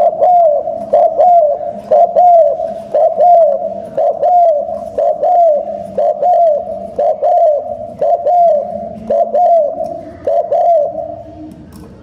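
Spotted dove giving a fast run of short coos, mostly in pairs about once a second, close to the microphone. The cooing stops about a second before the end.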